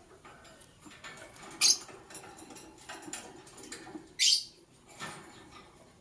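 Lovebirds calling: one short, shrill call, then a longer shrill call a few seconds later, with faint clicks between.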